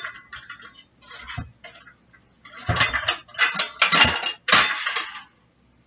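A metal spoon scraping and clinking against a frying pan as ground beef is stirred and turned. A clink at the start, then a run of quick, loud scrapes in the middle of the clip.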